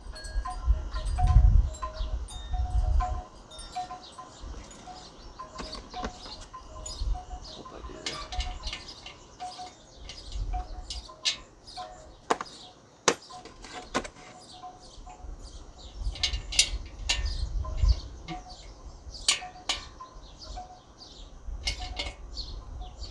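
Metal sockets and hand tools clinking and rattling as they are sorted through in search of the right size, a string of sharp, ringing clinks, with dull low rumbles of handling near the start and again about two-thirds of the way in.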